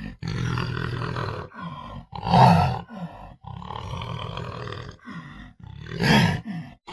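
Panther growling in a series of rough calls separated by short pauses, the loudest about two and a half seconds in and another near the end.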